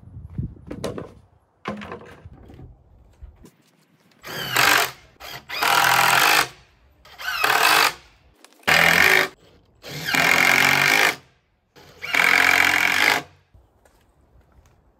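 Cordless drill driving screws into the wooden slats of a panel in about six short bursts, each a second or so long. A few light knocks come first.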